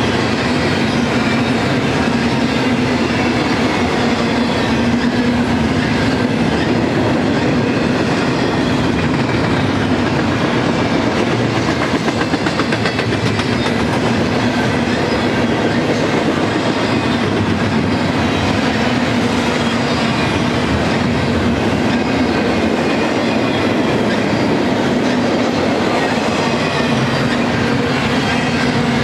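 Double-stack intermodal train's loaded well cars rolling past: a loud, steady rumble of steel wheels on the rails.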